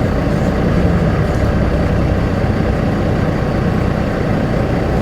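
Semi truck's diesel engine running steadily at low revs, heard from inside the cab as a continuous low rumble.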